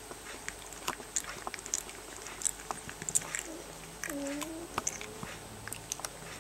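18-day-old rough collie puppies mouthing and nibbling at each other's faces, making scattered small wet smacks and clicks, with a brief pitched puppy whimper about four seconds in.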